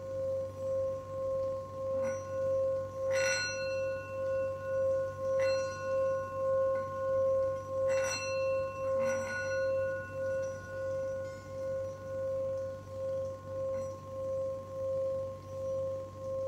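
A metal singing bowl sung by rubbing a wooden mallet around its rim: one steady ringing tone with higher overtones, swelling and fading about twice a second as the mallet circles. A few light clicks come from the mallet knocking the rim.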